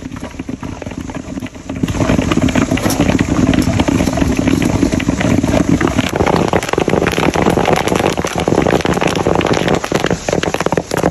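Popcorn popping in a pan over a fire: a dense, rapid crackle of pops that turns much louder about two seconds in.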